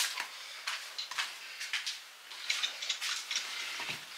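Soft rustling and light clicks of hands rubbing in hand cream and handling a small plastic cream tub, with a dull thump near the end.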